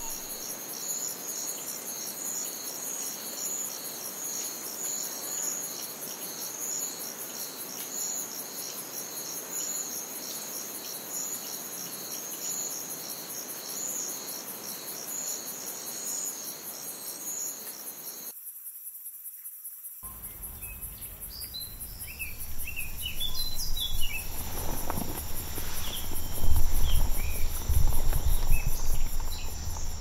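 Night insects chirping steadily in an even, repeating pulse over a soft hiss. After a short near-silent break past the middle, birds call a few times and louder low rustling and thumps follow.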